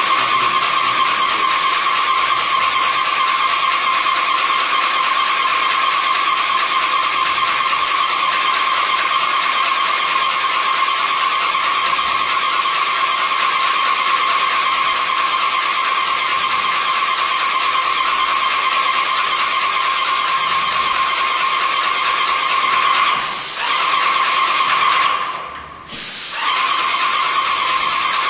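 Pneumatic spray gun spraying primer: a steady hiss of compressed air with a constant tone in it. It stops briefly twice near the end, the second time fading out for about a second before starting again abruptly.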